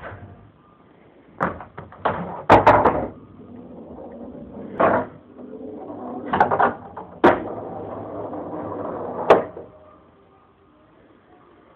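Pool balls knocking and dropping into a pool table pocket: a series of sharp clacks and thuds, with a steady rolling rumble inside the table between about six and nine and a half seconds.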